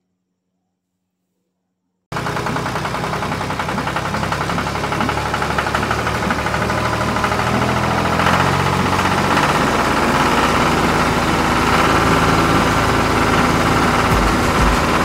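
Swaraj 963 FE tractor's diesel engine running steadily while it pulls a plough through the soil. It starts abruptly about two seconds in, after near silence.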